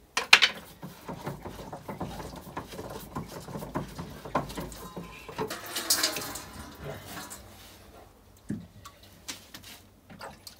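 Big blue plastic water-filter housing, the one holding the ceramic filter, being unscrewed from its cap and lowered. Plastic clicks and knocks, the sharpest just after the start, with water sloshing in the bowl.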